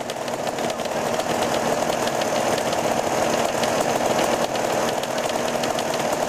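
Dirt bike and ATV engines idling steadily side by side, with a rapid, even firing patter.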